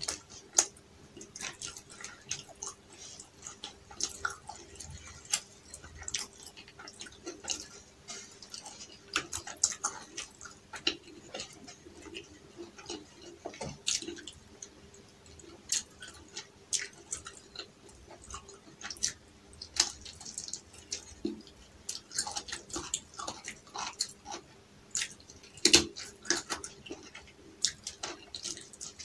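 Close-miked chewing and wet mouth sounds of a person eating tandoori chicken by hand, with irregular smacks and crackly clicks as the meat is bitten, chewed and pulled apart with the fingers.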